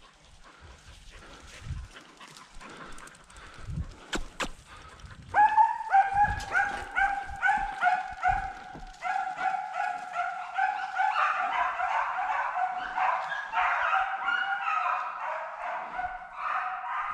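Beagles giving tongue on a deer's scent: a string of short, high, yelping bays begins about five seconds in and comes two or three a second. From about halfway the voices of several dogs overlap.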